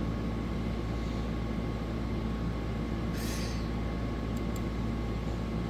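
Steady background room hum: a low mechanical drone with a faint high whine, with a brief soft hiss about three seconds in.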